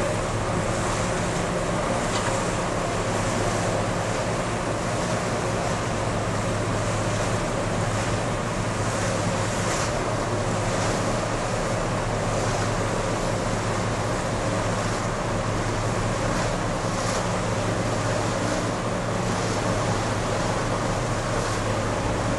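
Steady wind and rushing water aboard the cruise ship Norwegian Spirit under way, with a constant low hum from the ship underneath.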